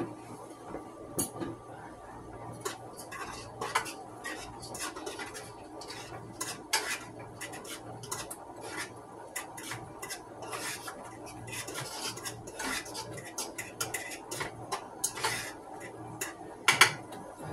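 A spoon clinking and scraping in a cooking pot while stirring turkey stuffing, with irregular knocks against the pot over a steady low hum.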